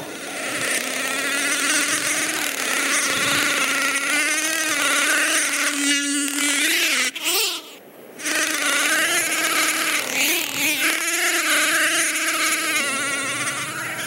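A swarm of grasshoppers' wings buzzing in flight: a loud, wavering drone of many overlapping buzzes. About seven seconds in it breaks off briefly with a gliding pitch, then the swarm drone returns.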